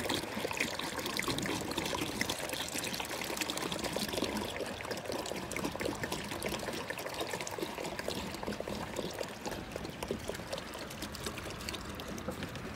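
Concentrated liquid bleach pouring steadily from a plastic jug into a plastic bucket of soapy water.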